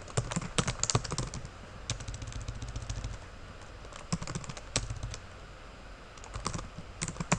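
Computer keyboard being typed on: quick key clicks in short irregular bursts with pauses between.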